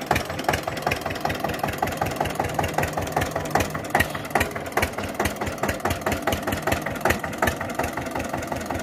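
Old Eicher diesel tractor engine chugging steadily in a rapid, even beat as it pulls a heavily loaded sugarcane trolley, about 60–65 quintals, through soft, wet field soil.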